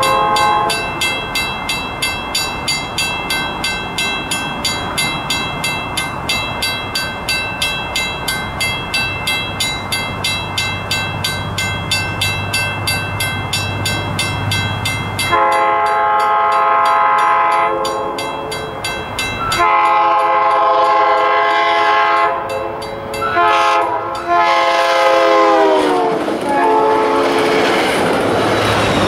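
A railroad crossing bell dings steadily, about two to three strikes a second, while an approaching diesel commuter train's engine hum builds beneath it. Then the train's horn sounds the crossing signal: long, long, short, long. Its chord falls in pitch as the leading cab car passes close by.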